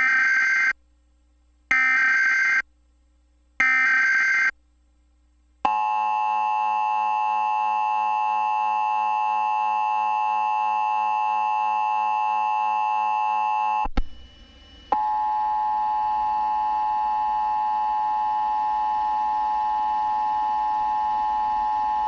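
Emergency Alert System broadcast tones. Three short, harsh data bursts about a second apart (the digital SAME header) are followed by the long, steady two-tone attention signal. The tone breaks off after about eight seconds with a click, then resumes about a second later.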